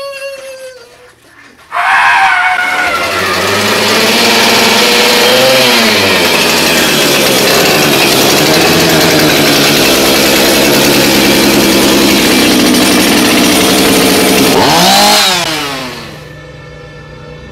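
Gasoline chainsaw running loud at high revs, starting about two seconds in. Shortly before it dies away near the end, its pitch briefly rises and falls.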